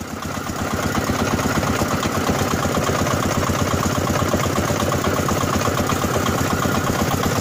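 A wooden river ferry boat's small diesel engine running steadily with an even pulse, fading up over about the first second.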